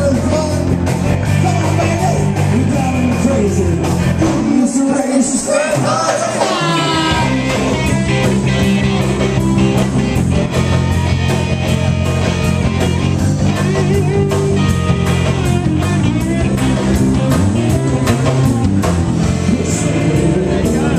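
Blues-based rock band playing live: electric guitars over bass and drums. About five seconds in, the bass and drums drop out for roughly two seconds while a guitar plays a short run on its own, then the full band comes back in.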